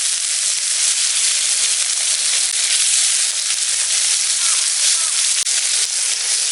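Steak sizzling steadily as it cooks over a campfire, a continuous dense hiss.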